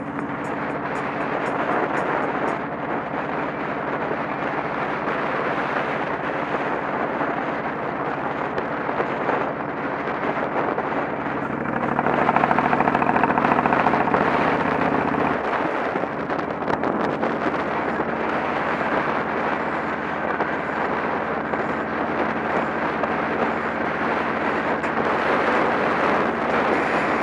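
Motorcycle engine running at cruising speed on a city street, with wind rush and road noise on the camera's microphone. The engine note changes and drops lower about halfway through.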